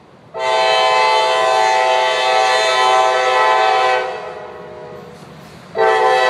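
CSX freight locomotive's multi-chime air horn sounding one long blast of about three and a half seconds, then a short blast near the end.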